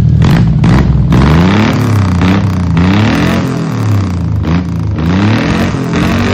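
Daihatsu Hijet 1000's engine being revved repeatedly, its pitch rising in short sweeps and falling back about five or six times.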